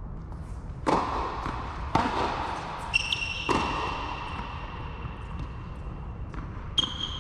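Tennis ball struck by rackets and bouncing on an indoor court during a rally, each sharp hit echoing in the hall. A high thin steady tone sounds twice, the first time held for about three seconds.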